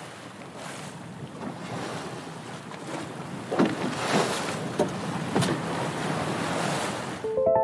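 Sea waves and wind around a kayak, growing louder, with several splashes of paddle strokes in the water in the middle. The water sound cuts off near the end as plucked-string music notes begin.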